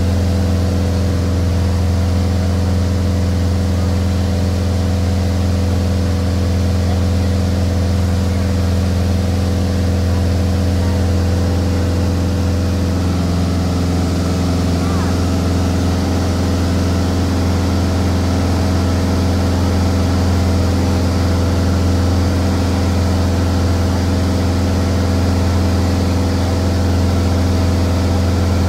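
Steady drone of a Glasair I RG's single piston engine and propeller, heard inside the cockpit in flight: a deep even hum with a few steady higher tones above it.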